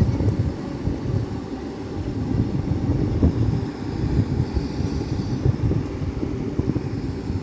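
Excavator's engine running, a steady low rumble.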